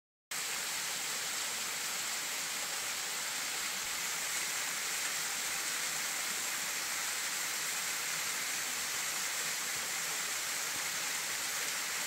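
Benton Falls, a thin waterfall spilling down stepped rock ledges, splashing as a steady, even rushing hiss that cuts in suddenly just after the start.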